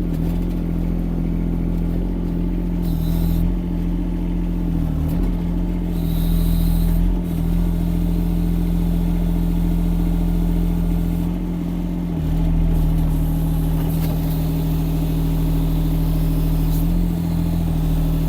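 Mini excavator engine running steadily while its hydraulics work to lift a heavy log, the engine note dipping briefly several times as it comes under load.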